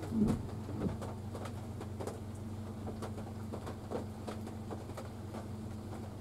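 Raindrops tapping irregularly on a car's roof and glass, heard from inside the cabin over a steady low hum.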